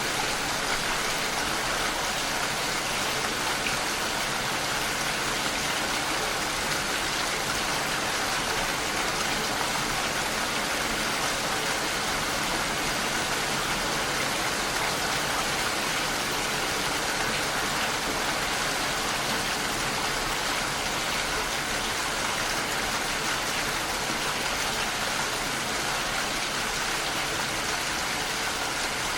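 Steady heavy rain: a dense, even hiss of rainfall that does not change.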